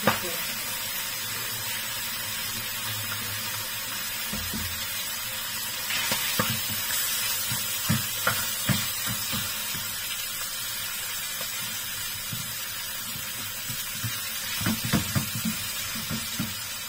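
Salmon pieces sizzling steadily in butter in a nonstick frying pan. A spatula scrapes and knocks against the pan in short clatters, as the pieces are turned about six seconds in and again near the end.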